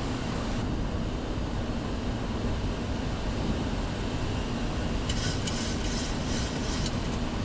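Steady cockpit noise of a Boeing 737-700 in flight on approach: airflow and engine noise, with a faint steady hum. About five seconds in, a short patch of crackly hiss sits on top for a couple of seconds.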